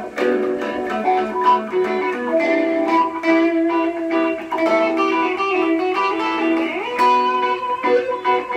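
Electric guitar through an amp playing a single-note lead melody, with a pitch slide upward about seven seconds in.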